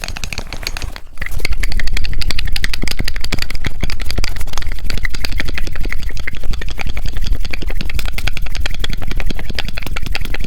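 Fast, aggressive scratching and tapping directly on a TASCAM recorder's microphones: a dense, rapid rattle of clicks over a low rumble, getting louder about a second in.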